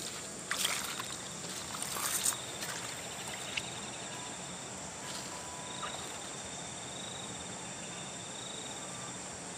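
Steady stream water running, with a few short splashes in the first couple of seconds. From about two seconds in, an insect trills high in repeated pulses.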